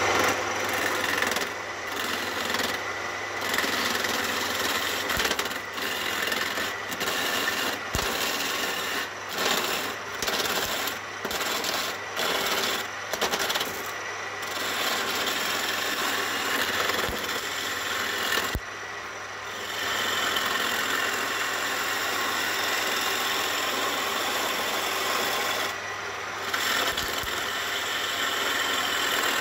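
Wood lathe running while a homemade roughing gouge, made from a steel shear blade for cutting angle iron, cuts into the spinning wooden blank. The result is a rough scraping hiss that comes and goes as the tool is pressed in and eased off, over a steady low hum from the lathe.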